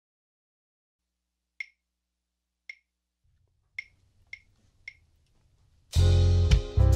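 Five finger snaps, two slow and then three quicker, counting in the tempo; about six seconds in, a band led by saxophone comes in on the beat.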